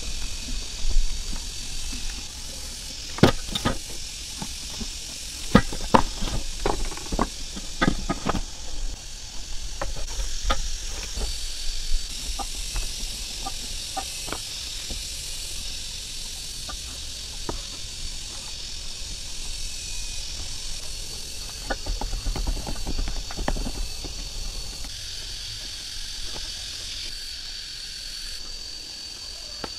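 Scattered clicks and knocks of cooking over a charcoal fire, most of them in the first half, over a steady high hiss.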